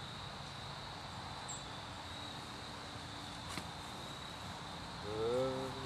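Crickets trilling steadily in the evening outdoors. Near the end comes a short voice-like moan that rises in pitch.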